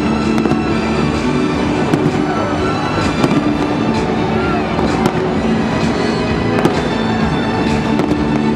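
Fireworks bursting and crackling, a sharp bang every second or so, over music that plays throughout.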